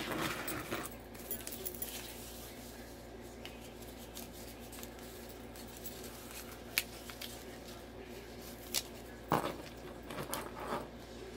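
Paper rustling and light handling of planner pages and sticker sheets. A few sharp taps and clicks follow, the loudest about nine seconds in, as stickers are peeled and pressed onto the page.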